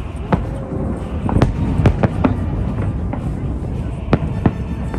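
Fireworks bursting: a string of sharp bangs at irregular intervals, about seven in all, over a steady low rumble and crowd noise.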